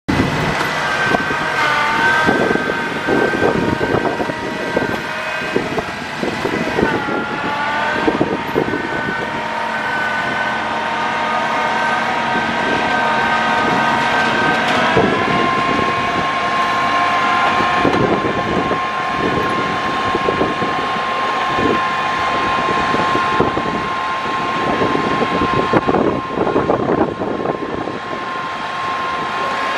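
Rubber-tyred land train's tractor unit driving along a wooden pier deck: a steady drivetrain whine that shifts in pitch a few times and settles higher about fifteen seconds in, over irregular knocks and rattles from the deck boards.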